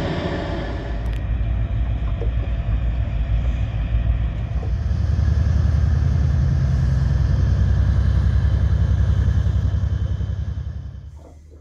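Towboat's diesel engines running with a deep, steady rumble and a fast, even throb, growing louder about halfway through as it passes, then fading away near the end.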